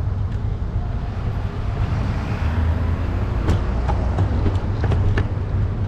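Street traffic with a heavy low rumble of wind on the microphone. A vehicle swells past about two seconds in, and a few sharp clicks come in the second half.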